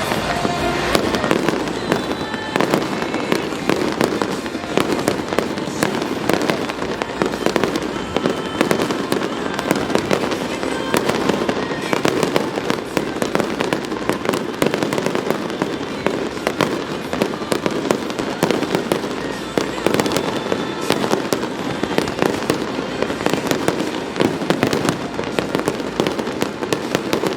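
Fireworks display: a dense, unbroken barrage of bangs and crackles going off many times a second.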